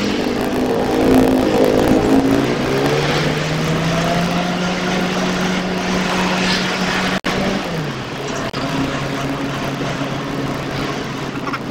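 Car engine heard from inside the cabin over road noise as the car drives: the engine note rises as it accelerates, holds steady, then drops to a lower pitch near the end.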